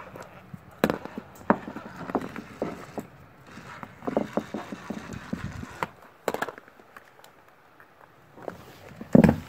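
Irregular knocks, taps and scrapes of a cat moving around inside a clear plastic bin with a small plastic ball. The loudest thumps come about a second in, about six seconds in, and just before the end.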